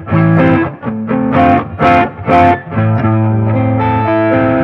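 Electric guitar, a Squier Jazzmaster through a Klon-style 'Good, Bad and Ugly' overdrive pedal into a Fender Tonemaster Deluxe Reverb amp, giving a lead-type overdriven tone. A run of picked notes and chords, then a chord held for the last second and a half.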